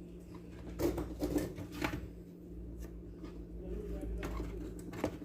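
Light clicks and knocks of hands working on a blender's wiring and small parts, over a steady low hum.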